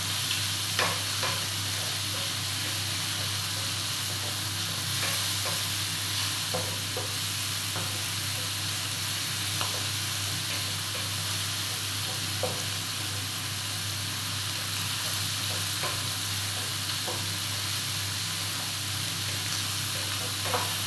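Mixed seafood sizzling steadily as it is stir-fried in a stainless steel electric pan, with a wooden spatula now and then clicking and scraping against the pan.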